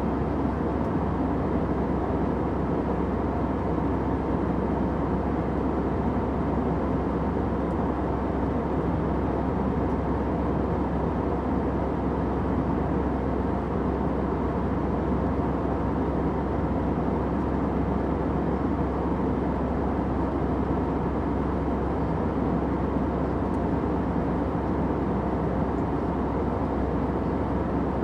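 Steady airplane noise used as sleep white noise: a constant, even rushing drone with a faint low hum, unchanging throughout.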